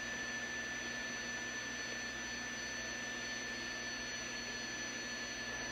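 Shortwave static hiss from a National NC-173 tube receiver's speaker, tuned to the 20-metre digital-mode segment, with a steady high tone of a received digital signal running through it.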